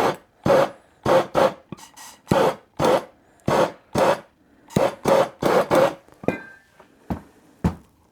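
Rhythmic hand scraping strokes, about two a second, rubbing back and forth. About six seconds in they stop, a brief high beep sounds, and two sharp knocks follow.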